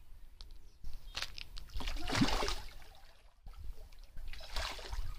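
A hooked fish thrashing at the surface, splashing and sloshing the water in two bursts: one about a second in, the other past four seconds.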